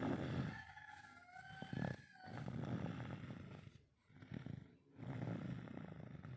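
A tired girl snoring in deep sleep: several long, rasping snore breaths with short pauses between them. A drawn-out, slightly falling call sounds in the background about a second in.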